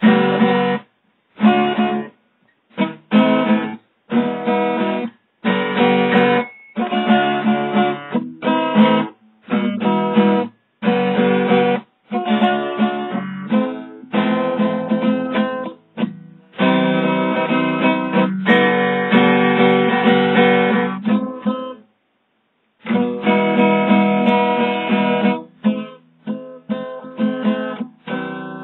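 Guitar strummed in chords, playing in short spurts that stop dead into silence and start again, with a longer pause about three-quarters of the way through.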